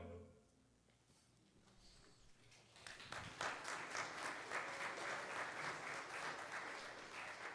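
The choir's last held chord, with organ underneath, cuts off right at the start; after a short hush the congregation claps, starting about three seconds in and carrying on to the end.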